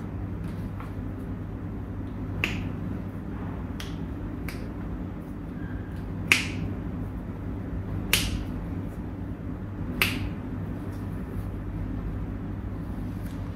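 Sharp snaps from a masseuse's hands, about six in all, spaced a second or two apart, over a steady low hum.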